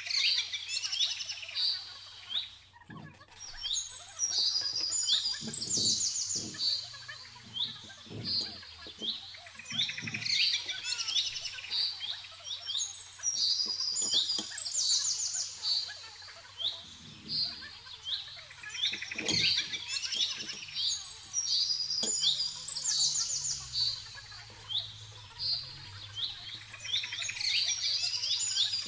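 Birdsong: a small bird chirping and twittering in quick high trills, phrase after phrase with short gaps, all through.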